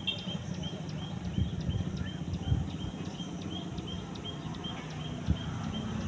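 A bird repeating one short high chirp at an even pace, about two and a half times a second, over a low rumble with a few soft thumps.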